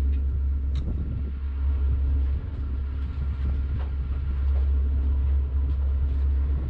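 Engine idling steadily, a low even drone, with a few faint light clicks over it.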